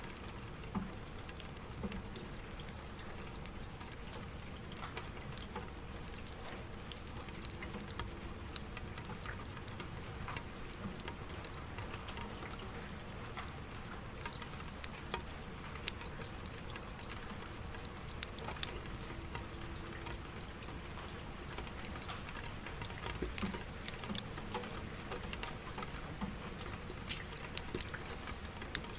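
Steady rain, with individual drops pattering and dripping at irregular intervals.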